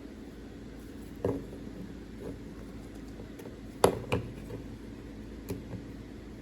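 Plastic LEGO pieces being handled: a few sharp clicks and knocks, the loudest a pair about four seconds in, over a steady low room hum.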